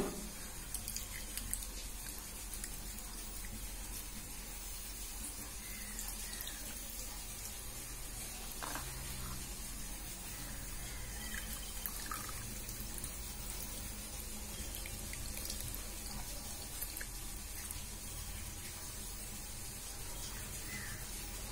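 Faint squishing and sloshing of a hand squeezing soaked tamarind in a bowl of water, working the pulp loose to make tamarind extract.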